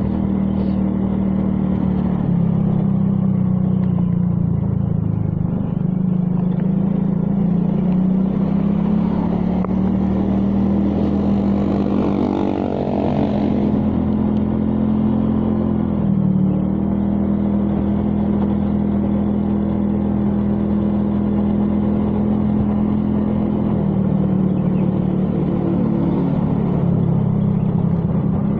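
Road vehicle's engine running steadily while driving through city streets, its pitch stepping up and down with speed. About twelve seconds in, a swell of noise rises and fades, as of another vehicle passing close by.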